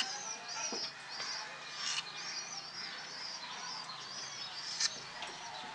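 Small birds chirping continually in short, high, wavering calls, with a few sharp taps from a knife cutting through soft dough onto a steel plate.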